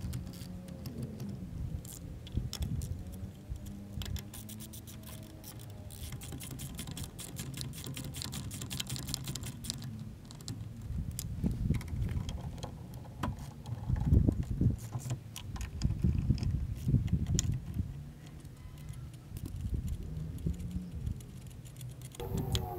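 Socket ratchet clicking in runs as it turns the lug nuts on a boat trailer wheel. Heavier knocks and thuds from handling the wheel come about two-thirds of the way through.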